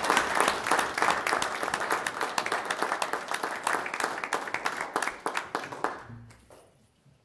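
Room audience applauding, the clapping thinning out and dying away about six seconds in.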